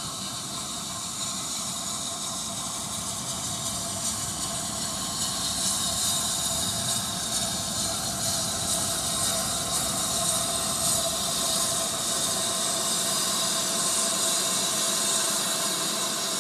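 BR Standard Class 7MT 'Britannia' 4-6-2 steam locomotive No. 70013 running slowly in with its train, with a steady hiss of steam over the low rumble of wheels on rail. It grows louder over the first several seconds as it comes closer.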